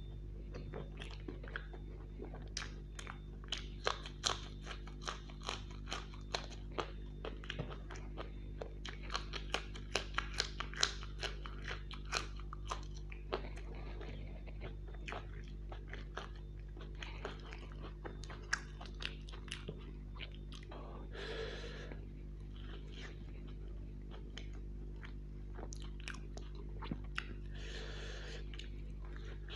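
Close-miked chewing of crisp deep-fried food, with dense crunches through the first dozen seconds that then thin out to occasional ones. A steady low hum sits underneath.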